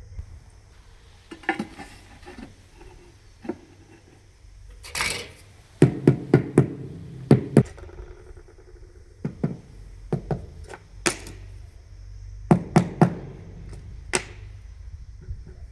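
Floor tiles being tapped down into their mortar bed: clusters of sharp knocks, three or four at a time, after a brief scrape about five seconds in.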